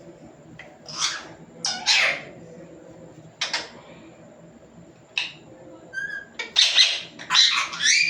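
Pet parrot giving a series of short, harsh screeching calls, with a few brief whistled chirps about six seconds in. The calls come thicker and louder near the end.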